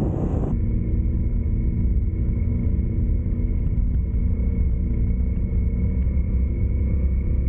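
Steady low rumble of a vehicle under way, engine and road noise, with a brief hiss that cuts off about half a second in.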